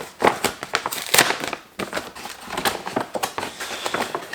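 A shipping package being torn and pulled open by hand: a quick, irregular run of crackling, crinkling and ripping.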